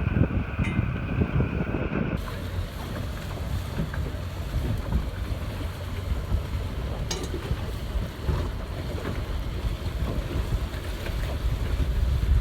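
Wind buffeting the microphone in a continuous low rumble, with a steady hiss that turns brighter about two seconds in.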